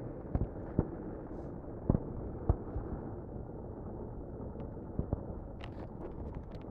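Wind rumbling on a phone microphone, broken by a handful of sharp pops and knocks, the loudest about two and two and a half seconds in.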